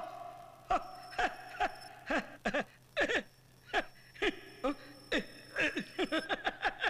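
Men laughing: a string of short 'ha' bursts, each dropping in pitch, coming quicker and closer together near the end.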